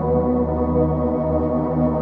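Background ambient music with sustained, slowly shifting tones.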